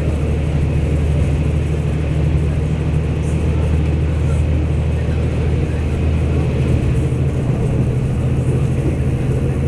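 Steady low drone of a DR2800 diesel multiple unit's underfloor diesel engine, heard from inside the passenger cabin while the train is under way. About seven seconds in, the engine note shifts a little higher.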